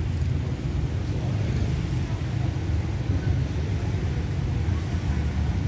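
Low, steady rumble of an approaching diesel-hauled passenger train.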